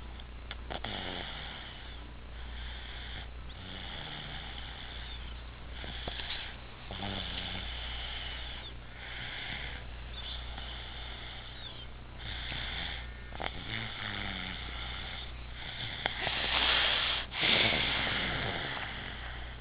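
Snoring, one breath about every second, with a louder stretch near the end.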